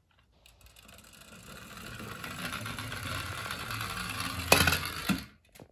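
Toy police car rolling along a wooden board, its small wheels and mechanism making a whirring rattle that grows steadily louder, then a sharp knock about four and a half seconds in and a smaller one just after, before it stops suddenly.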